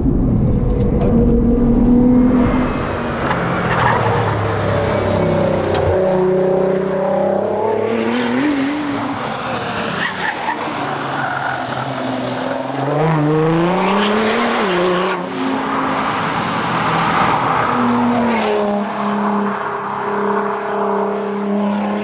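Nissan R35 GT-R's twin-turbo V6 driven hard on a tarmac rally stage, its pitch climbing under acceleration and dropping back at gear changes and lifts, with tyres squealing through the corners.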